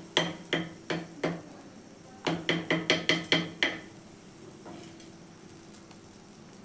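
A metal utensil knocking on a hot tawa while borax is roasted on it to puff into khil: a few spaced knocks, a pause of about a second, then a quicker run of about seven. Each knock leaves a short low ring from the griddle, and the knocks stop a little past the middle.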